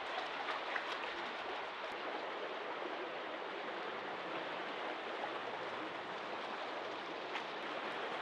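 Shallow creek rushing steadily over rocks and riffles, with a few light clicks in the first second.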